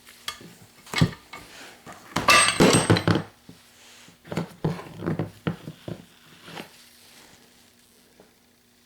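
Steel sockets being struck with a hammer: a single metal clank about a second in, a flurry of clanking knocks around two to three seconds in, then several lighter knocks, trailing off in the last couple of seconds.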